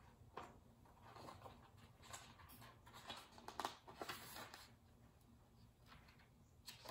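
Near silence, with a few faint rustles of picture-book pages being turned and handled.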